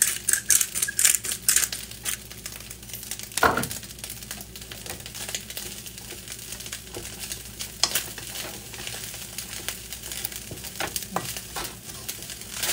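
Pepper shaker shaken quickly over a wok for about the first second and a half, then fried rice sizzling in the wok as a wooden spoon stirs and scrapes it. One short, louder sound about three and a half seconds in.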